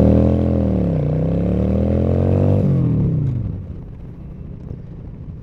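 Honda Shadow 750 Aero's V-twin engine accelerating away from a stop: the pitch rises, drops once about a second in at a gear change, rises again, then falls away as the throttle closes about two and a half seconds in, leaving a quieter low running note.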